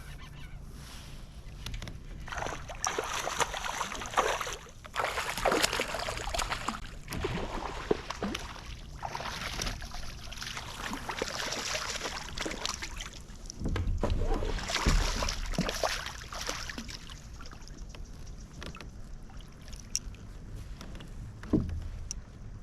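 Water splashing and sloshing around a kayak in repeated swells a second or two long, with low thumps about two-thirds of the way through.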